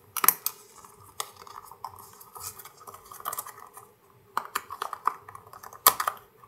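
A small rubber RC crawler tire being worked by hand as a thin 3D-printed PETG sidewall insert and foam are fitted inside it. Rubbing and rustling run through it, with several sharp clicks and knocks, the loudest just after the start and about six seconds in.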